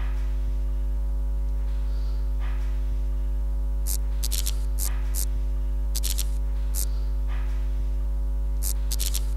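Steady electrical mains hum with a low buzz, broken by a few short clusters of static crackle in the second half.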